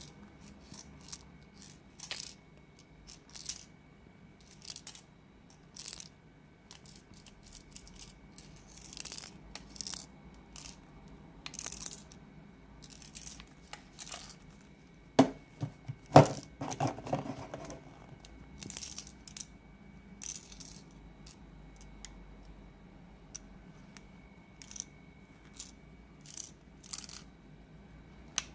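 MicroLab T1 Bluetooth headphones rattling as they are moved: a string of short clicks and rattles, with two loud knocks and a longer rattle about halfway through. The rattle comes from a loose part inside, a defect that the replacement pair has as well.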